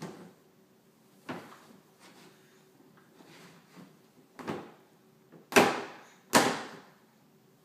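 Hollow knocks of hard shoes striking a moulded plastic toy sandbox as a toddler clambers about in it: five separate knocks, the last two, about a second apart near the end, the loudest.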